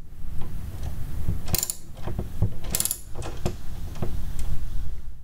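Hand socket ratchet clicking in quick runs as bolts are ratcheted tight, with two sharper metallic clicks partway through.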